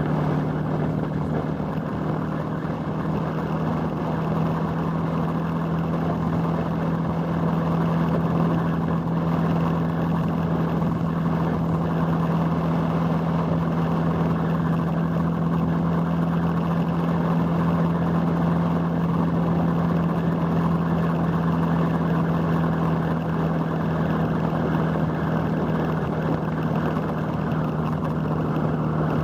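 Motorcycle engine running at a steady cruising pitch, heard from on the bike, with a steady rush of wind and road noise.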